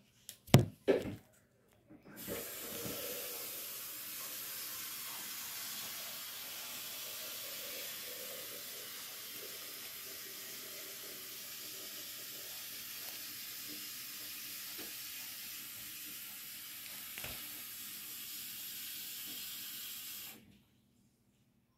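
Water poured in a steady stream into the plastic reservoir tank of an Uruq hydroponic system, topping it up to full. A few handling knocks come first, then the pour runs for about eighteen seconds and stops abruptly.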